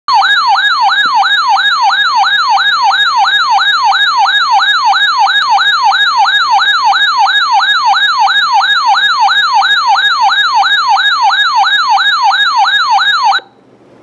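Weather alert radio's alarm siren going off for a flash flood warning: a loud electronic warble of quick rising sweeps, about three a second, that cuts off suddenly near the end.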